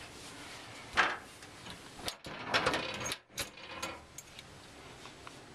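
Handling noise at a glass-fronted gun cabinet: a sharp knock about a second in, then a cluster of clicking and rattling knocks of wood, glass and metal, settling into faint rustling near the end.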